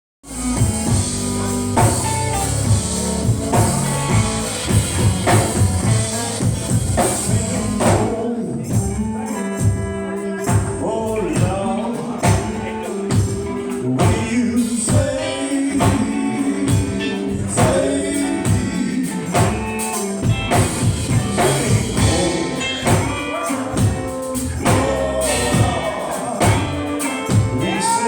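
Gospel music: singing over a band with a steady, pulsing beat and percussion.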